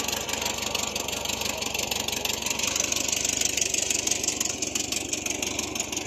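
Volkswagen Combi (Type 2 van) engine idling steadily, a fast, even pulsing exhaust note.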